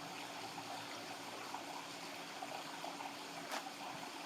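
Steady background noise, an even hiss or rush, with a faint low hum and a single brief click about three and a half seconds in.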